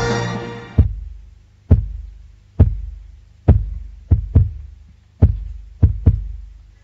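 Deep, heartbeat-like thumps in a soundtrack, about one a second with a few in close pairs, each dying away in a low rumble. A held musical chord fades out in the first second.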